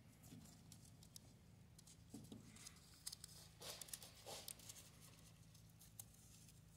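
Near silence, with a few faint clicks and rubbing from gloved hands working a new seal onto a hydraulic cylinder piston, mostly between about two and four and a half seconds in.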